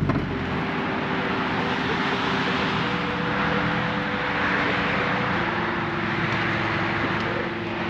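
Steady rush of road traffic, swelling gently, under soft held music notes that change pitch every two or three seconds.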